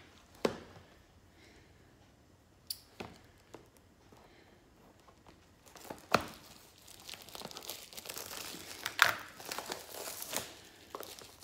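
A few light knocks, then from about six seconds in, plastic shrink-wrap crinkling and tearing as it is cut with scissors and pulled off a cardboard box, with several sharp crackles.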